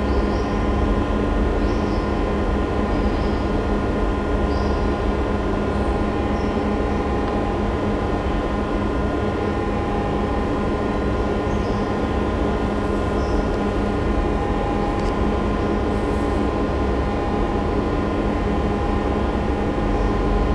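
Curved manual treadmill rumbling steadily as its slatted belt is driven round by a runner, with a low rumble and a few held hum tones.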